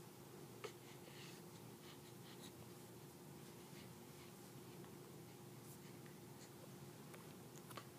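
Near silence: room tone with a faint steady hum, and a few soft rustles and clicks.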